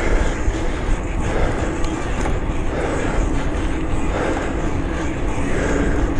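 Steady wind rush and rumble on the microphone with the running noise of a mountain bike on a dirt trail, rising and falling in loose swells.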